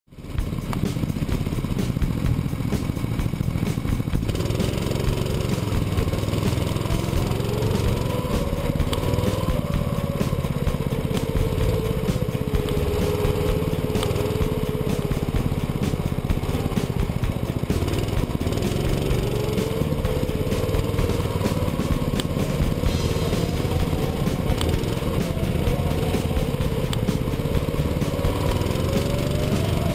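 Go-kart engine running at speed, its pitch rising and falling every few seconds as the kart accelerates and slows through the turns. It fades in just after the start.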